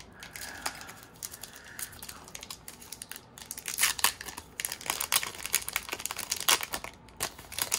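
Foil wrapper of a Pokémon trading card booster pack crinkling and tearing as it is ripped open by hand, in a run of sharp crackles, loudest about four seconds in and again about six and a half seconds in.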